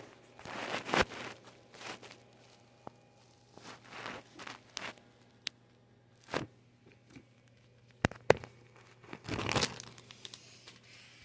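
Hands fiddling with a fidget toy while trying to fix it: scattered rustling and crinkling, with a few sharp clicks, two of them close together about eight seconds in.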